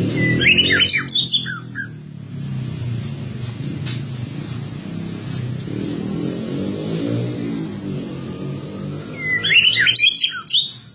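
White-rumped shama singing two short bursts of quick, high whistled phrases, one right at the start and one about nine seconds in. A low steady engine hum runs underneath throughout.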